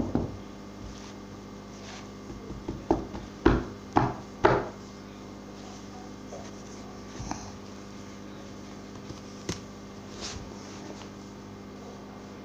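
A quick series of about five dull knocks or bangs starting about three seconds in, the last three loudest and half a second apart. A few faint clicks follow, over a steady low hum.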